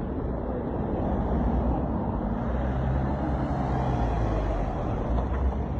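A motor vehicle's engine running close by, a low steady hum that grows louder about halfway through.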